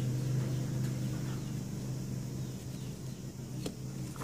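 Steady low machine hum, fading slightly toward the end, with a couple of faint clicks near the end.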